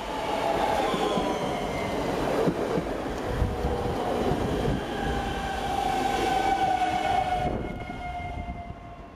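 Slovenian Railways class 312 Siemens Desiro electric multiple unit passing close at speed: a steady electric whine from its traction equipment, sinking slightly in pitch, over the rumble of its wheels on the rails, with a couple of sharp knocks near the middle. The sound falls away near the end as the train moves off.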